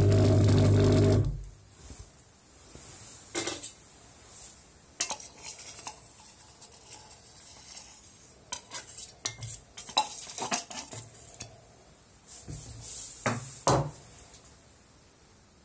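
A machine's steady low hum cuts off about a second in. Then come scattered clinks and scrapes of a metal knife against a plastic measuring cup as the last of the duplicating material is scraped out into the flask.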